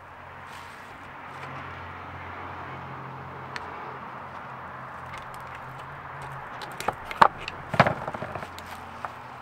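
Metal clicks and scrapes of a flathead screwdriver prying the boot clamp off a CV axle, ending in a cluster of sharp clinks and knocks near the end as the clamp comes free and the tool is put down on the wooden bench. A low steady hum runs underneath until shortly before the knocks.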